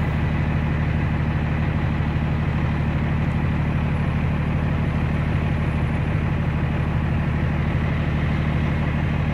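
Vehicle engine idling steadily: a low, even drone that holds the same pitch and level throughout.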